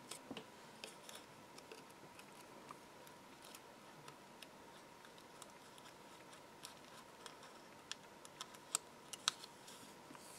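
Small scissors snipping into thin printed card: faint, irregular sharp clicks of the blades closing, with two louder snips near the end.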